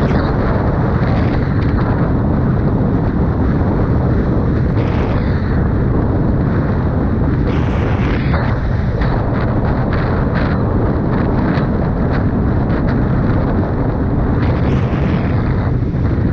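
Steady wind rush on the microphone while riding a Suzuki Hayabusa, with the motorcycle's inline-four engine running underneath; a few short buffeting gusts break through.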